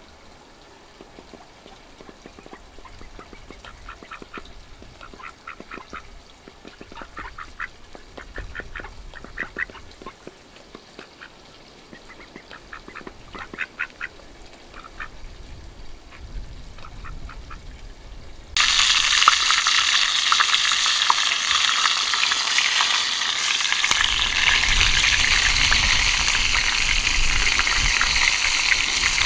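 Faint duck quacks in short irregular bursts. About two-thirds of the way in, a loud, steady sizzle of frying in hot oil starts suddenly and drowns them out.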